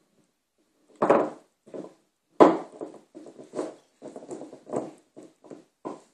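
Border collie puppy gnawing on a beef chewing bone: a run of irregular crunching and knocking noises that starts about a second in, loudest near one second and again at two and a half seconds.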